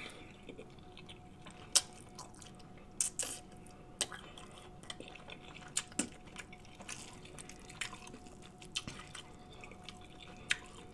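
Close-miked wet eating sounds from a sauce-soaked seafood boil: scattered sharp, wet lip-smacks and chewing clicks, with sticky finger sounds in the butter sauce, over a faint steady hum.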